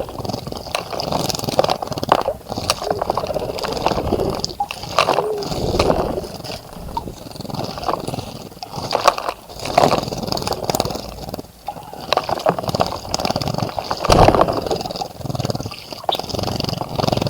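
Water splashing and sloshing in a birdbath as birds bathe, in uneven bursts of flicking and dipping.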